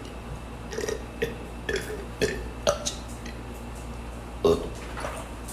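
A man burping repeatedly: a string of short burps, several about half a second apart, with the loudest one near the end.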